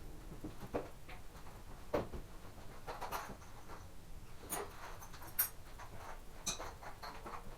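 Irregular light clicks, taps and knocks of metal lock parts and hand tools being handled while a uPVC door's multipoint lock gearbox is replaced, the sharpest about two seconds and five seconds in.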